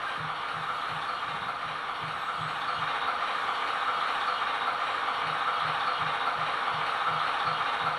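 Diesel engine sound from the factory sound decoder of a Roco H0-scale model of the ČSD T752 locomotive, played through its small onboard speaker. A low engine beat repeats about three times a second over a steady hiss, and the beat weakens for a couple of seconds midway.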